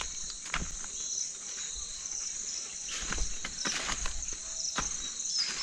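Insects chirring steadily in a high band, with a few soft knocks or footstep-like rustles.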